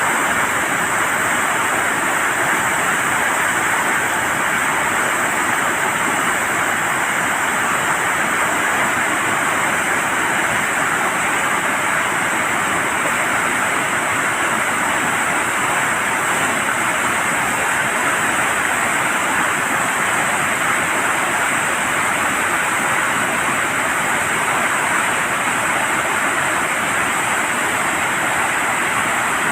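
Steady loud rush of water pouring through the open floodgates of a dam.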